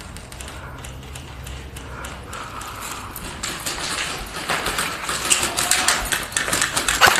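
Quick, irregular clatter of footfalls and rattling gear from a player moving on foot, building up and getting louder over the last few seconds.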